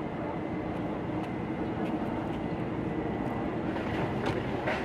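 Steady motorboat engine drone with river water washing against a moored boat's hull, splashing up about four seconds in.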